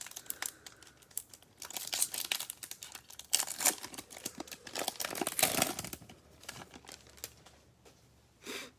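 A plastic foil card-pack wrapper being torn open and crinkled by hand, in crackly bursts through the first two-thirds, with a brief rustle near the end.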